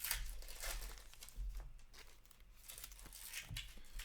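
Foil wrappers of Upper Deck hockey card packs crinkling and tearing as packs are ripped open and handled, in a string of short rustles.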